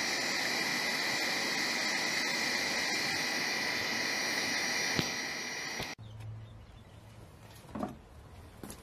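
Angle grinder with a wire wheel running at speed, a steady whine with the scratch of the wire wheel brushing paint off a small steel part to bare metal for bluing. A sharp tick about five seconds in, then the sound cuts off suddenly about six seconds in, leaving only a brief rustle near the end.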